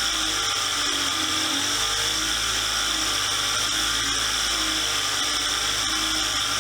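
Power tool running steadily at constant speed with a high whine.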